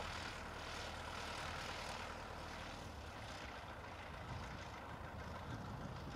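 Piper PA-28 light aircraft's piston engine running at low taxi power, its propeller turning: a steady low drone under an even hiss.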